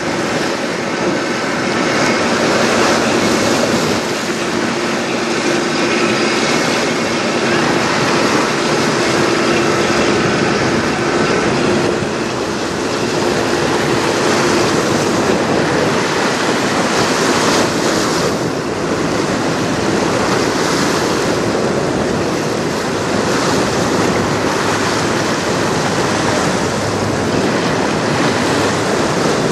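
Steady rush of river water with wind noise on the microphone as the lake freighter Saginaw passes close by. A faint steady hum from the ship's machinery sits under it for about the first half.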